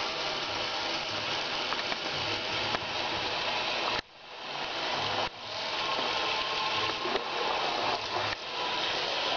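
Water from a bathroom tap running steadily into a sink, a continuous hiss. It cuts out about four seconds in and swells back over the following second or so.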